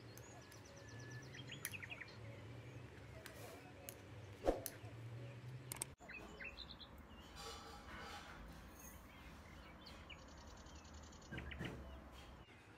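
Birds chirping and trilling in the background, with short high trills and chirps coming and going over a faint steady hum. A single sharp knock sounds near the middle.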